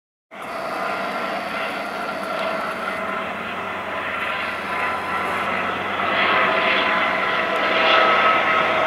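Small helicopter flying overhead, its engine and rotor running with a steady whine that grows louder from about six seconds in as it comes closer.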